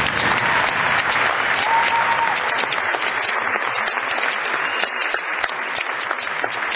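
Audience applause: many hands clapping at once in a dense, steady patter, with a brief faint call or whoop in the first couple of seconds.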